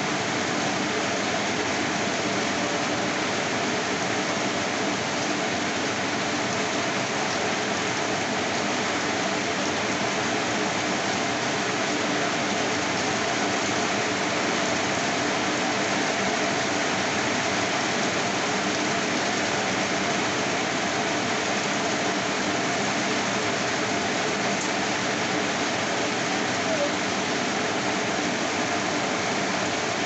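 Steady rain falling and splashing on a wet street and roofs, an even, unbroken hiss.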